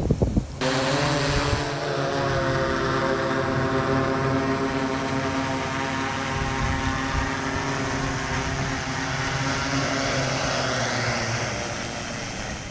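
Multirotor drone's propellers buzzing in a steady, many-toned whine as it hovers and comes down to land, easing off slightly near the end.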